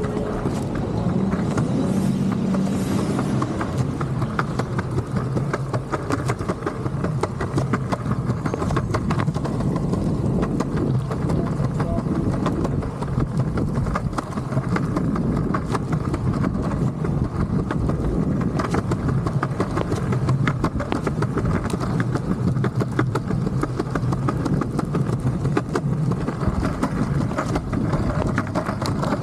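Longboard wheels rolling steadily over a concrete sidewalk, a low continuous rumble with frequent clicks as the wheels cross the seams in the pavement.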